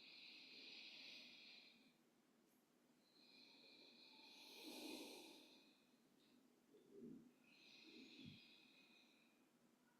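Faint, slow breathing: three long, breathy breaths, with a couple of soft dull knocks near the end.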